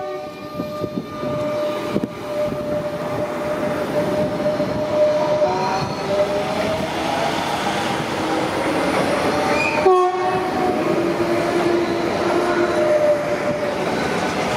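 Electric commuter train moving past along the platform, with the whine of its electric drive rising in pitch partway through over rolling rail noise. A short, sudden train horn blast sounds about ten seconds in.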